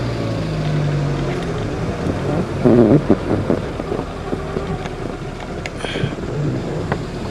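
A vehicle's engine running as it drives along, with road rumble and wind noise on the microphone. There is a louder rough burst of noise about three seconds in.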